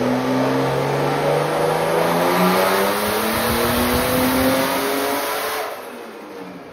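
Turbocharged BMW M50/M52 straight-six making a full-throttle dyno pull at about 12 psi of boost: the engine note climbs steadily up through the revs with turbo whine rising alongside it. About five and a half seconds in, the throttle shuts and the engine falls away quickly.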